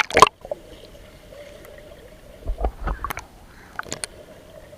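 Swimming pool water heard from underwater: a loud splash at the start, then a steady faint hum with muffled splashes and knocks about two and a half to three seconds in and again near four seconds.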